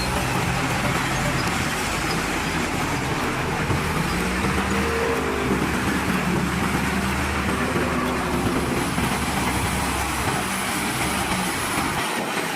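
Several heavy diesel construction machines, earthmoving equipment and trucks, running at once in a loud, steady din of overlapping engines. The deep low rumble drops away near the end.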